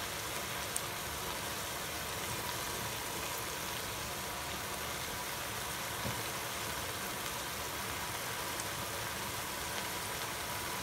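Stir-fried vegetables sizzling gently in a frying pan: a steady, even hiss, with a faint thin tone and a small knock about six seconds in.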